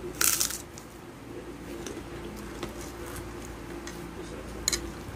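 Eating by hand: fingers mixing rice with sambal goreng and krupuk crackers on a plate, with a short crackle about a quarter second in and another near the end, and faint small clicks between them. A steady low hum runs underneath.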